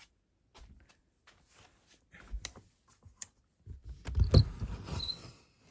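Close handling noise from a phone camera being carried: scattered clicks and rustling, then a cluster of dull thumps and rubbing about four seconds in.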